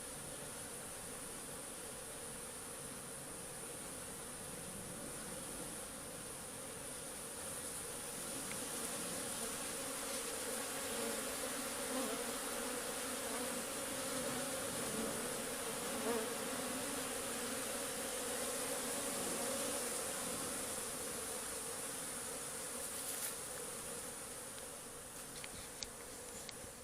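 Many honeybees buzzing steadily around the hive, a dense hum that swells a little louder partway through.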